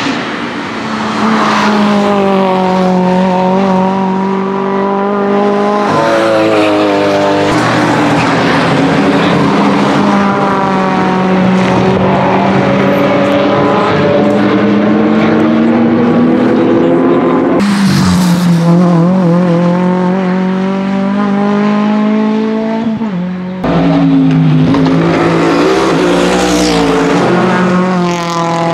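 Toyota GR86 Cup race car's 2.4-litre naturally aspirated flat-four engine running hard at high revs as it drives past, the pitch climbing and dropping with gear changes and the pass-by. The sound jumps suddenly several times where the footage cuts between passes.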